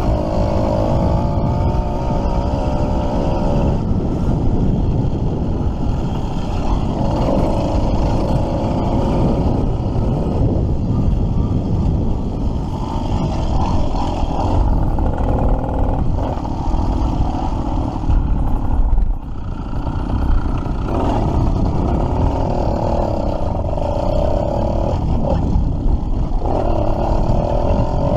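Two-stroke motorized-bicycle kit engine running under way, fitted with a flexible expansion-chamber exhaust. Its pitch rises and falls again and again with the throttle, and it drops off briefly about two-thirds of the way through.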